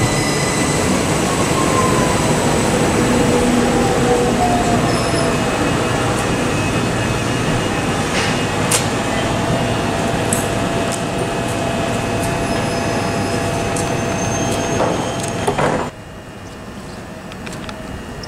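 A Southeastern Class 375 Electrostar electric multiple-unit train slowing to a stop at the platform, its loud running noise carrying a whine that falls steadily in pitch as it brakes. A few sharp clicks follow, then the sound drops abruptly to a quieter steady background near the end.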